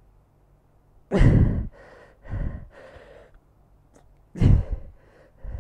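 A man breathing hard with exertion: two loud, forceful exhales, about a second in and again near the end, with quieter breaths in between.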